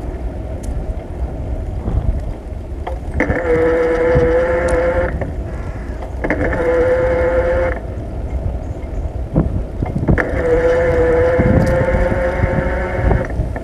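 Wind buffeting the microphone and road rumble from a bicycle riding along a paved lane. Over it, a steady pitched whine comes and goes three times, each lasting two or three seconds.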